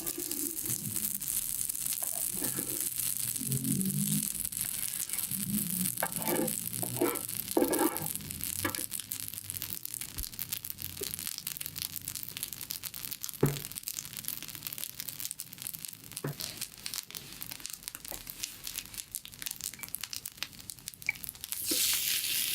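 Food sizzling steadily on an electric hot plate, with a few sharp knocks, one of them loud about thirteen seconds in.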